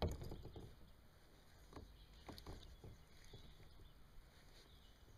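Scattered faint taps and knocks from someone handling a fishing rod and shifting about in a kayak, with one sharper knock right at the start.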